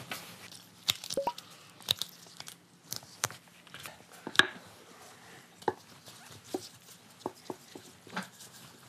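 Gloved hands handling fresh noodle dough on floured surfaces: scattered knocks, taps and rustles as the dough is pressed and worked, the sharpest knock about four seconds in.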